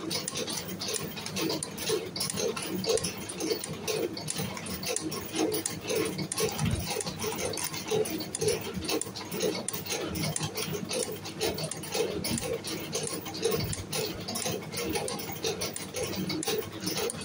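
Spring-coiling machine running continuously, feeding steel wire through its guides and coiling and cutting off small compression springs in a steady, fast rhythmic clatter with a dense ticking of metal parts.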